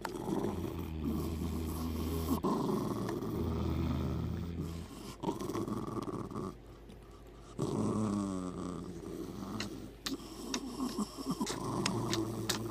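Dog growling in several long, low rumbles while being hugged and kissed: a grumpy, moody morning growl.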